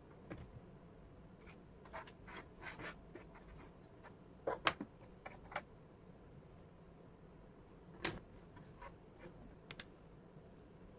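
Wooden jigsaw puzzle pieces clicking and tapping against each other and the table as they are handled and fitted, in irregular light clicks with the loudest cluster near the middle.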